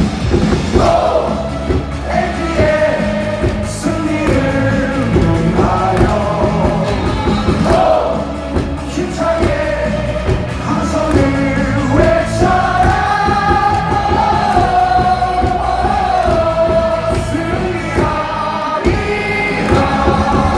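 Cheer music over a stadium PA with a large crowd singing along.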